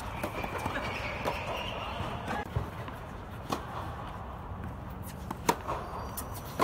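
Tennis balls struck by rackets and bouncing on a hard indoor court during a doubles rally: a handful of sharp hits a second or more apart, the loudest one late on.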